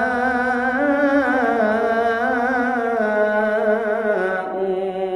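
A man singing unaccompanied in maqam Rast, drawing out the last syllable of a verse in one long melismatic run with vibrato. The pitch steps down about three seconds in and again about a second later, then the note fades near the end.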